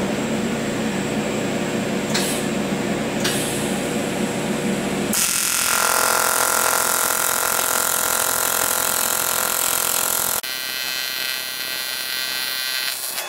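AC TIG welding arc on aluminum, buzzing loudly. It starts suddenly about five seconds in, after a steady low hum, and drops abruptly to a quieter buzz about ten seconds in. The amperage is varied with a hand-held TIG Button rather than a foot pedal.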